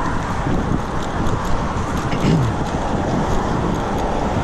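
Steady rushing road and wind noise while riding a bicycle along a roadway, with a few faint rattling clicks.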